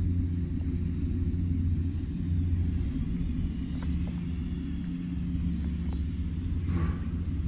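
An engine running steadily nearby: a low rumble and hum that stays at one pitch.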